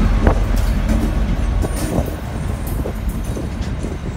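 Class 56 diesel locomotive running past at low speed as it pulls away, followed by its freight wagons, a low rumble with irregular wheel knocks and clicks. The rumble eases off slightly about halfway through as the locomotive gives way to the wagons.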